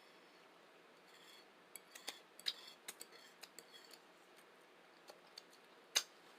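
Eating sounds: a quick run of small clicks and smacks for about two seconds, then a single sharper click near the end.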